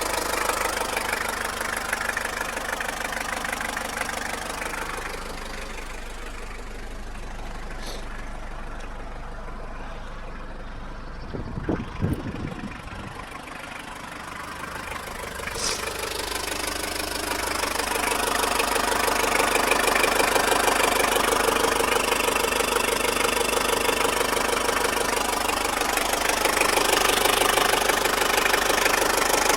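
Toyota engine running with a rapid, continuous knock. This is the knocking noise the owner is demonstrating. The sound dips partway through, with a brief low bump near the middle, then runs louder for the second half.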